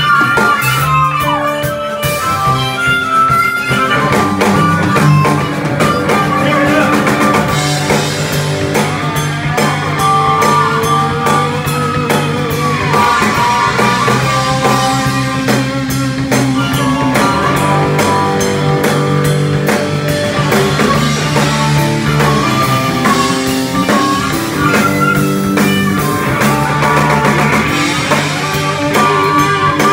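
Blues-rock band playing live: a harmonica cupped against a vocal microphone plays a solo with bent notes over electric guitar and drum kit.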